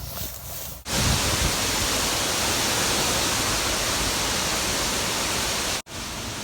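Steady, loud rush of storm noise, wind and heavy rain, cutting in about a second in and cutting off abruptly shortly before the end. Before it, a quieter stretch carries faint cricket chirping.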